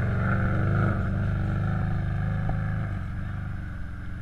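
Side-by-side rally UTV engine running under power as the vehicle passes close by and drives away, loudest about a second in and fading over the last second.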